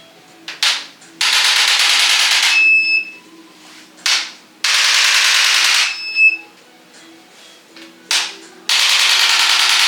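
Electric chiropractic adjusting instrument firing three rapid-fire volleys of thrusts, each about a second and a quarter long. Each volley is led by a short tap and followed by a brief high beep.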